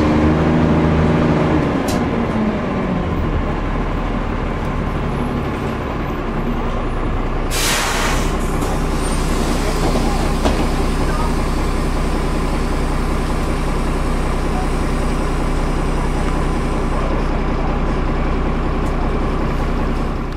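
Dennis Dart SLF single-deck bus's diesel engine heard from inside the saloon, its revs falling over the first few seconds as the bus slows, then idling steadily. About seven and a half seconds in comes a short hiss of compressed air from the air brakes.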